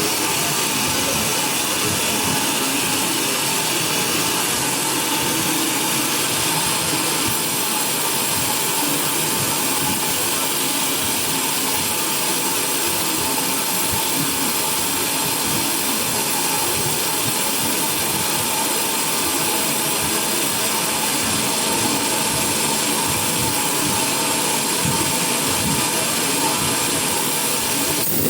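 Sawmill machinery running steadily without a break, a loud even mix of motor noise and high steady tones.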